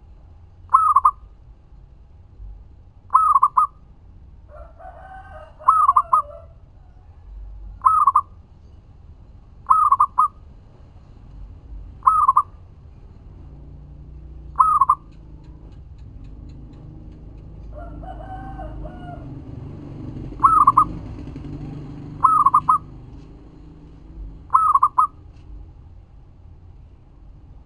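Zebra dove (perkutut) cooing: short, bright calls about two seconds apart, ten in all, with a pause of several seconds partway through. Twice a longer, lower call from another bird sounds behind it.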